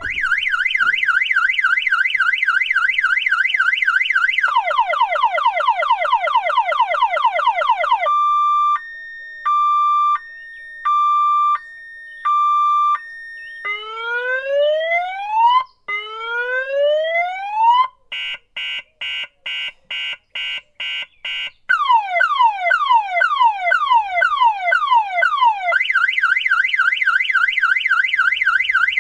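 Electronic car alarm siren cycling through its tone patterns. It starts with a fast warble, then goes to quick falling chirps, slow alternating two-tone beeps, two long rising whoops, rapid beeping and falling chirps again, and ends back on the fast warble.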